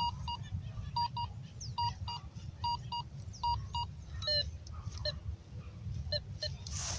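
Minelab Go-Find 44 metal detector beeping in quick pairs, about one pair every second, as the coil sweeps back and forth across a strong buried target. In the second half it gives shorter, lower beeps.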